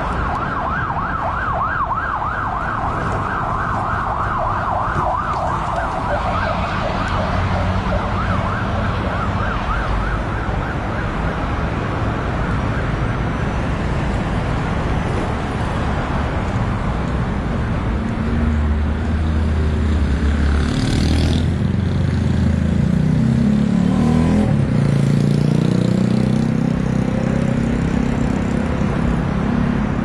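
Emergency vehicle siren in a fast yelp, its pitch rising and falling several times a second, fading out about ten seconds in. Steady road traffic and engine noise runs underneath and grows louder in the second half.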